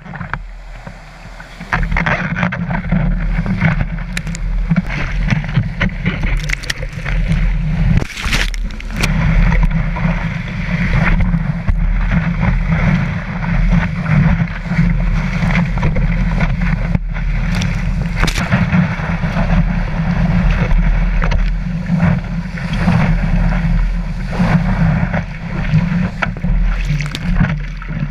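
Surf water rushing and splashing over a surfboard, picked up close by a board-mounted camera, with a heavy low rumble of water against it. Quieter for about the first two seconds, then loud and continuous, with many sharp splashes.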